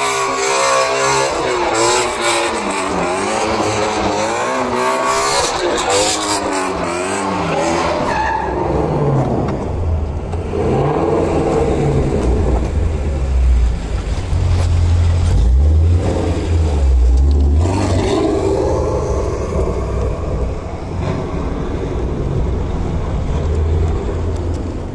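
Ford Shelby GT350's 5.2-litre flat-plane-crank Voodoo V8 revving up and down hard during burnout donuts, with tyres squealing and skidding. About eight seconds in, a heavy low rumble takes over.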